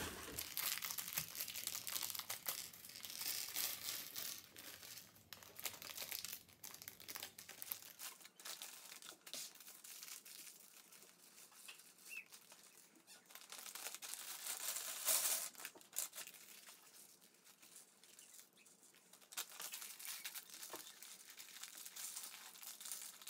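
Plastic bags of Lego pieces crinkling and rustling as they are handled, in bouts, with now and then a light click.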